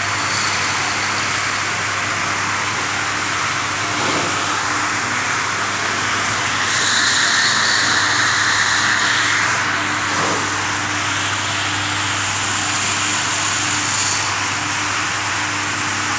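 Electric sugar-coating pan running: a steady motor hum under the hiss of sugar-coated grains tumbling in the revolving stainless-steel drum. The hiss grows louder for about three seconds in the middle.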